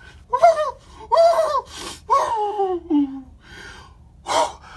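A man gasping and crying out in excitement: a run of breathy, wordless exclamations, the longest a cry falling in pitch about two seconds in, then a sharp intake of breath near the end.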